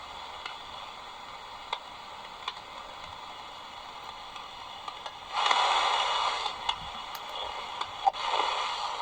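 XHDATA D-219 portable radio tuned between FM stations: a steady hiss with a few faint clicks, then a louder, noisy signal comes in about five seconds in.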